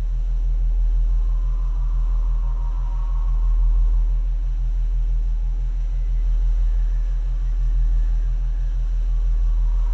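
Steady deep rumbling drone of a horror film's soundtrack, with faint high eerie tones swelling in about a second in and again near the end.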